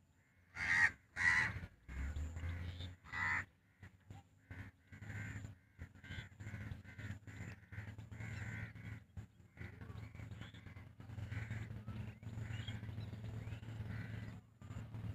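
Birds calling: three loud calls in the first few seconds, then a long run of quieter, closely repeated calls, over a steady low hum.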